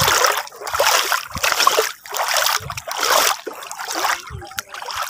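Feet wading through shallow seawater, a splash with each step, about six steps in a row.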